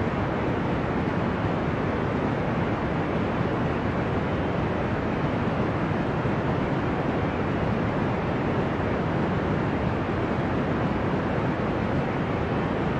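Deep, ocean-like noise for sleep: an even, steady hiss-rumble weighted toward the low end, with no swells or breaks.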